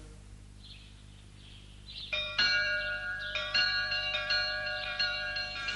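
Church bells ringing. A run of strikes begins about two seconds in, roughly three a second, each note ringing on under the next.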